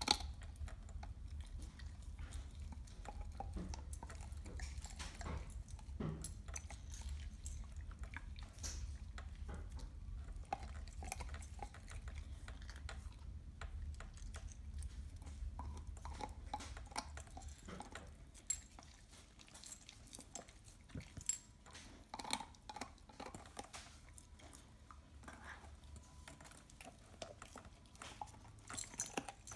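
Dog chewing and gnawing a raw meaty bone: irregular crunches and clicks of teeth on bone, coming and going with short pauses.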